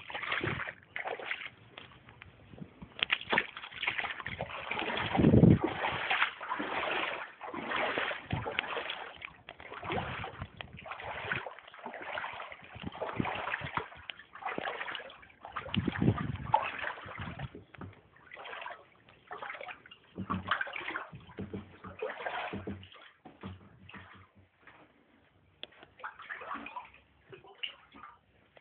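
Floodwater splashing and sloshing in irregular bursts, as of someone wading through it.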